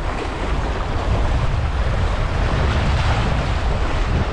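Sea surf washing and breaking around rocks, with strong wind buffeting the microphone as a steady low rumble.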